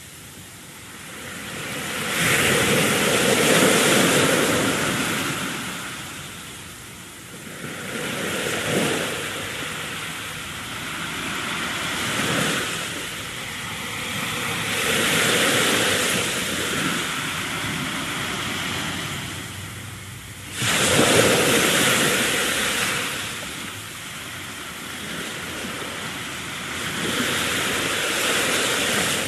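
A loud, rushing noise that swells and fades every few seconds, like surf washing in, with a sudden surge about two-thirds of the way through.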